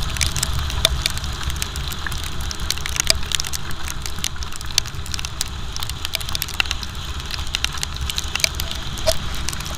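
Rain on a moving motorcycle: raindrops ticking and crackling irregularly on the camera and the rider's rain cover, over a steady low rumble of wind and the motorcycle running at road speed.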